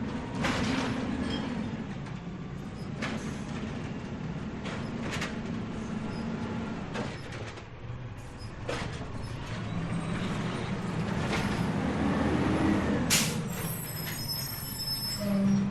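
Machine running with a steady low rumble, struck through by irregular sharp clanks and clicks: the sound of a rubbish-recycling machine at work.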